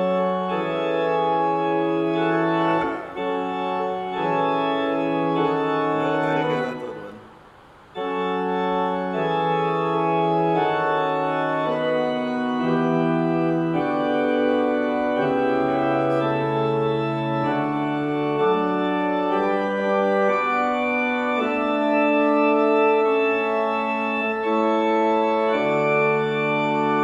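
Three-manual church organ played in sustained chords, the held notes changing every half second to second or so. The playing breaks off about six and a half seconds in, dies away, and starts again about a second later.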